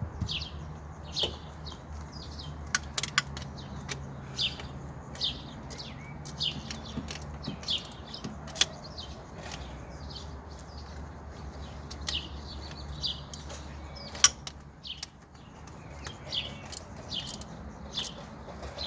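A small bird chirping over and over in short high notes, about one or two a second. Now and then there are sharp clicks and knocks, the loudest about fourteen seconds in, over a low steady hum.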